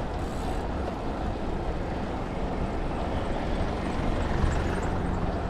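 Road traffic: a car's engine running nearby, a steady low rumble with no sharp events.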